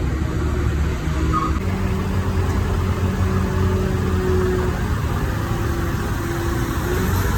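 A motor vehicle engine running steadily, with a low, even sound throughout.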